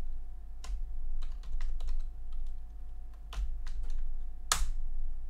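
Computer keyboard keys clicking in irregular keystrokes as someone types, with one louder keystroke about four and a half seconds in. A steady low hum runs underneath.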